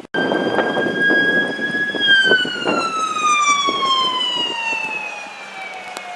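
Emergency vehicle siren on a wail: a high tone held for about two seconds, then sliding slowly down in pitch, turning to rise again at the very end.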